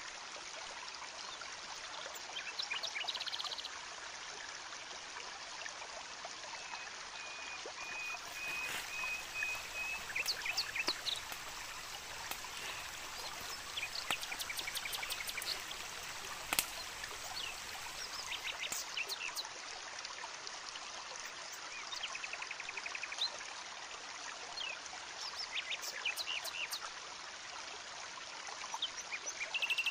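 Steady wash of running water in the forest, with scattered crackles and pops from a wood campfire starting about a quarter of the way in. A few short, high chirping trills come through over it.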